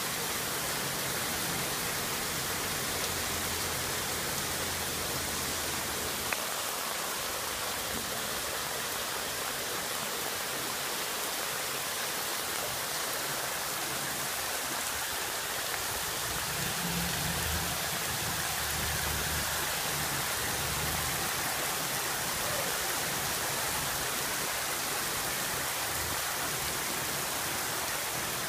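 Heavy rain pouring steadily onto pavement and parked cars, an even, unbroken hiss.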